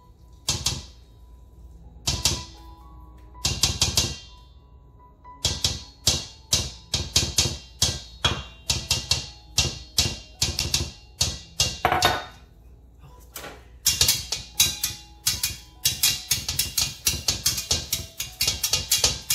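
Utensils knocking and clinking against a metal mixing bowl as a thick pumpkin batter is stirred. There are a few scattered knocks at first, then quick repeated strokes several times a second.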